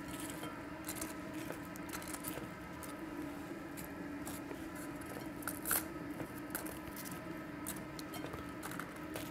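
Light clicks and rustles of hands handling thin cones and crisp vegetable fries on a steel counter, scattered and irregular, with one sharper click a little past the middle, over a steady low hum.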